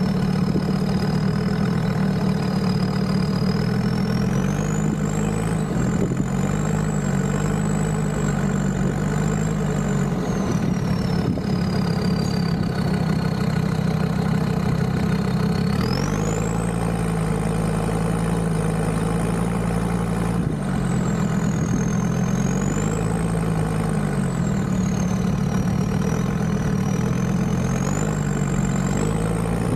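Land Rover Discovery 2's Td5 diesel engine running as the vehicle is driven, its revs rising and falling, with a thin high whine that rises and falls with it.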